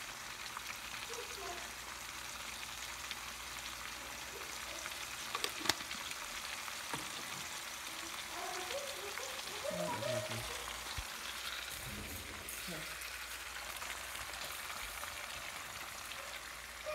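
Ackee and saltfish frying in oil in a pan, a steady sizzle throughout, with one sharp click about six seconds in. Near the end a spoon stirs the food in the pan.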